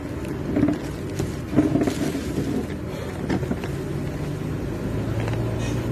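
Steady low mechanical rumble, with a few brief clatters about one to two seconds in.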